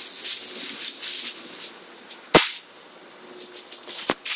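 A sharp, loud click or knock about two seconds in and a softer one near the end, over faint rustling and room noise.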